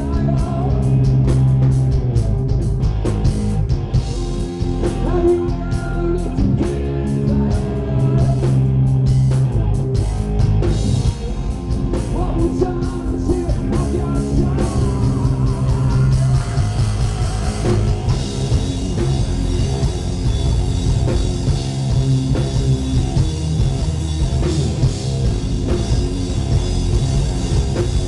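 Live rock band playing loudly, with distorted electric guitars, a full drum kit and a male singer's vocal.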